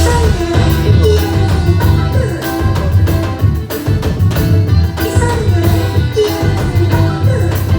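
Forró band playing a xote live, with drums keeping a steady beat under a prominent bass line.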